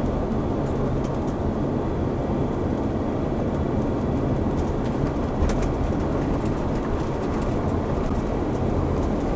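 Steady road and engine noise inside a camper van's cabin while it drives along, a continuous low rumble with no break.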